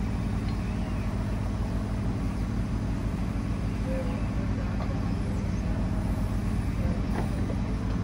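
JCB 4CX backhoe loader's diesel engine running steadily under working load while the backhoe boom swings and lowers into the trench.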